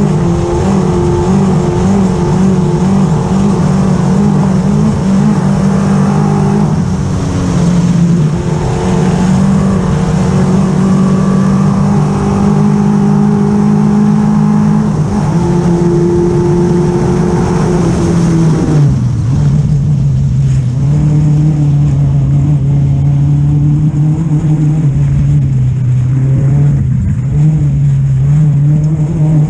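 Off-road race buggy's engine heard from on board, running hard at a steady high pitch over wind and road noise. About two-thirds of the way through, the revs drop suddenly and the engine settles at a lower steady note.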